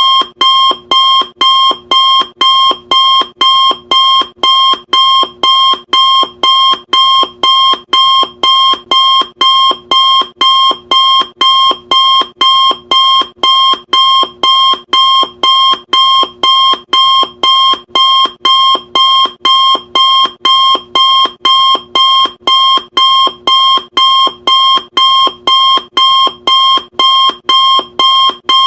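Electronic timer alarm beeping, a sharp high-pitched beep repeated evenly about twice a second without a break.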